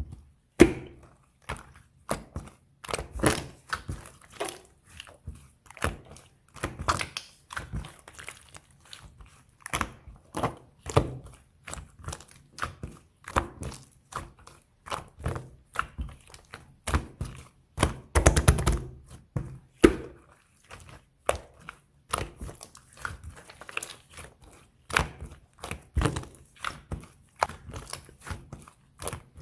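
Slime being squeezed, folded and pressed by hand, giving an irregular run of wet pops and clicks, with a denser burst of popping about eighteen seconds in.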